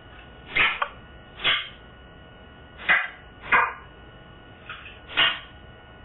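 African grey parrot making about six short, sharp clicks, unevenly spaced between pauses.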